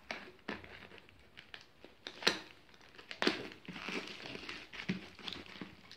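Mailer package being cut open with a utility knife and its wrapper pulled apart: crinkling and rustling of the packaging with scattered sharp crackles, the loudest a little past two seconds and a little past three seconds in.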